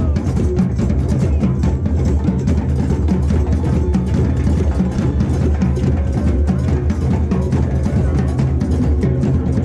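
Drum circle of many hand drums and stick-played drums playing together in a dense, continuous rhythm, with the deep drums loudest.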